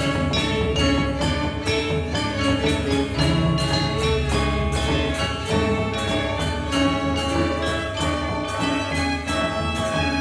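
A gamelan orchestra plays together with a string ensemble: quick, even runs of struck bronze metallophone notes over held, bowed string tones.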